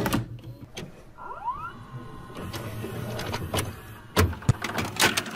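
A run of sharp clicks and knocks over a low steady hum, with a short rising squeak about a second in.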